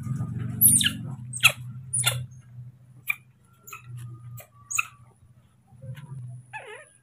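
Baby monkeys giving short, high-pitched squeaks, several in quick succession early on and scattered later, with a lower wavering call near the end, over a steady low hum.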